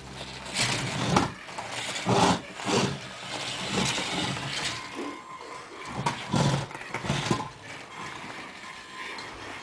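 Kyosho Mini-Z RC crawler's small electric motor and gears whirring in short, irregular bursts as it is driven, with the tyres scrabbling over rough terrain.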